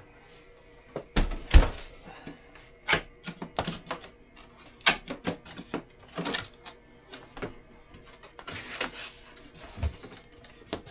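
Cardboard box being opened and its packing handled: irregular knocks, scrapes and rustles, with a heavier thump about a second and a half in.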